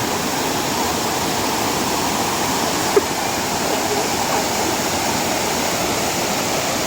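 Water of a small waterfall pouring steadily, a dense even rush, with one short sharp sound about three seconds in.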